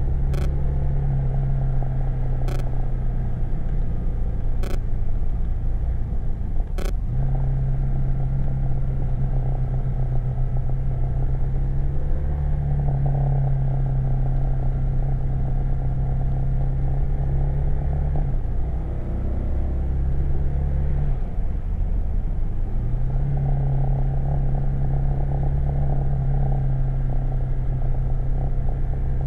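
BMW R 1200 GS motorcycle's boxer-twin engine pulling steadily under constant wind and road rumble, heard onboard. The engine note dips briefly about seven seconds in and twice more about two-thirds of the way through as the throttle is eased, then picks up again.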